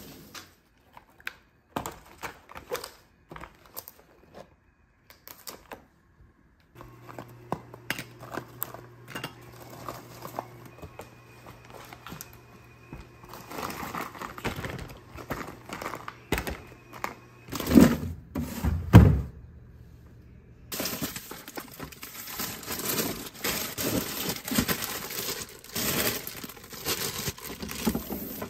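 Kitchen handling noises: scattered clicks and knocks, two loud thumps about two-thirds of the way through, then plastic packaging crinkling as instant noodles are sorted into plastic storage bins.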